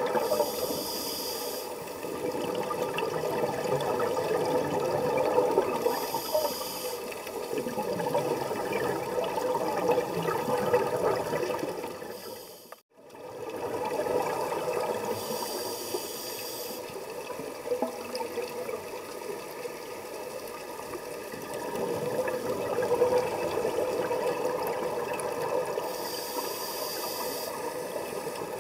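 Scuba diver breathing through a regulator underwater. A short hiss of inhalation comes four times, several seconds apart, between long gurgling rushes of exhaled bubbles. The sound drops out briefly about halfway through.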